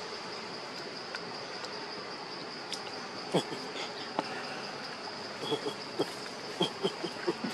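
Steady high-pitched drone of a forest insect chorus. From about three seconds in it is broken by scattered short, sharp clicks and knocks.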